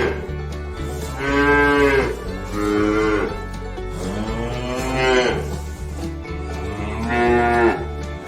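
Domestic cow mooing, about four long moos in a row.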